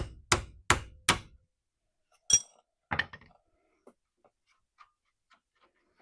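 Four quick hammer blows on metal, about three a second, then a single bright metallic clink and a knock, followed by faint small clicks.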